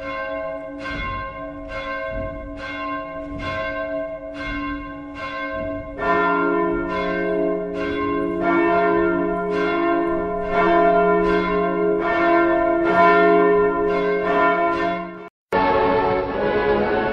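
Church bells ringing in steady strokes about twice a second, with a deeper bell joining about six seconds in. The ringing cuts off suddenly near the end and gives way to music.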